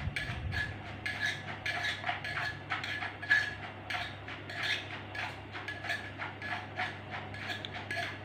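Wooden pestle pounding som tam in a mortar, a steady rhythm of knocks about two a second, while a spoon turns and taps the salad in the bowl.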